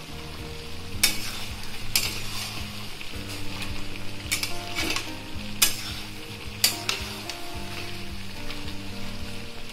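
Chicken pieces with onion, tomato and capsicum sizzling in an aluminium kadai while a steel spatula stirs and scrapes them through the spice masala in the slow-frying (kosha) stage, with several sharp knocks of the spatula against the pan.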